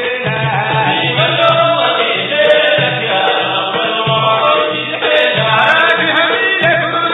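Sudanese Sufi madih praise song: a chorus of men chanting together over drums beating a steady rhythm.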